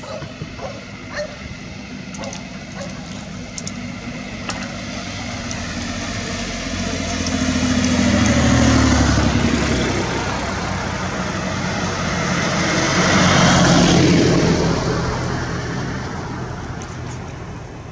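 Two motor vehicles pass close by on the road, one after the other. Each rises to a peak and fades: the first about eight seconds in, the second about five seconds later.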